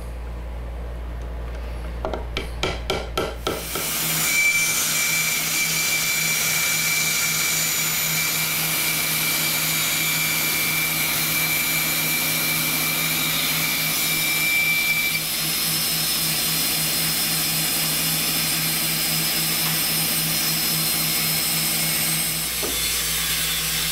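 A few quick light hammer taps, then from about four seconds in a bandsaw runs steadily while the protruding wooden dovetail keys are sawn off the box corners. A thin high whine runs through the middle for about ten seconds.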